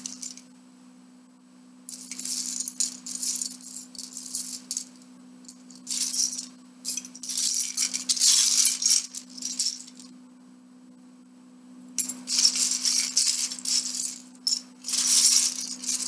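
Loose plastic Lego bricks clattering and rattling as hands rummage through a heap of them, in three spells of a few seconds each with quiet pauses between.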